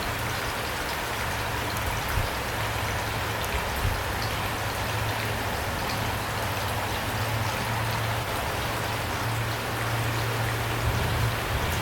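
Steady rainfall: an even hiss with scattered drop ticks, over a faint low steady drone.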